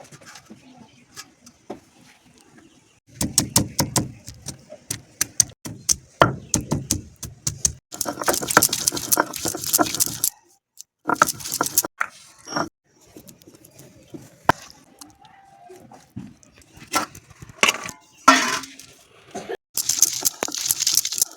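Kitchen cooking sounds: clicks, clinks and knocks of utensils and cookware, coming in busy clusters with quieter gaps between.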